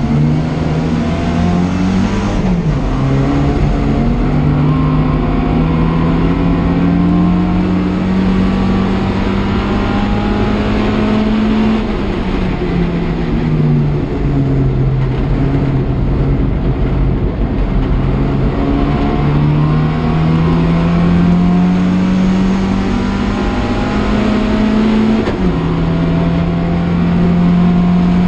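Classic Mini race car's A-series four-cylinder engine, heard from inside the cabin, revving hard through the gears. The pitch climbs steadily and drops sharply at an upshift about two seconds in and again near the end. In the middle it slides down for a couple of seconds as the car slows, then climbs again.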